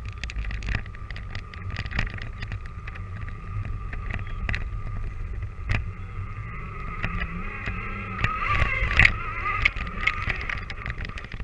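Onboard sound of a Danchee RidgeRock RC monster truck driving through snow: a steady electric motor and gear whine with a low rumble, punctuated by frequent clicks and knocks as the chassis and tires bump over snow-covered ground. The whine wavers with the throttle and is loudest a few seconds before the end.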